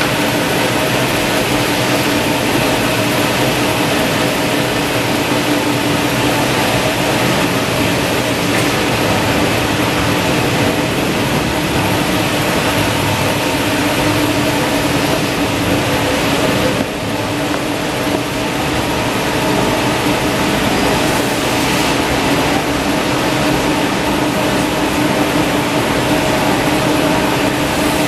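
Industrial tissue-paper production line running: a maxi-roll (JRT) and toilet-roll rewinder with its automatic log saw, making a loud, steady mechanical din with a constant hum underneath.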